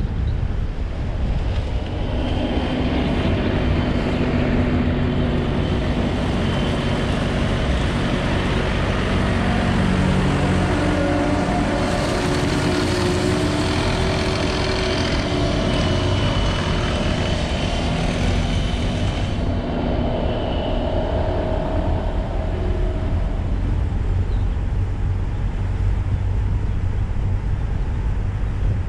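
A car driving: steady engine and tyre road noise with a low rumble and a faint hum that drifts in pitch. About twelve seconds in, the hiss turns brighter for several seconds, then cuts off suddenly.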